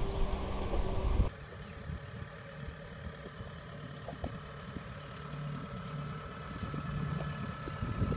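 A Kubota tractor working in mud, with wind on the microphone, stops abruptly about a second in. Then a crawler combine harvester's engine runs steadily, growing louder toward the end.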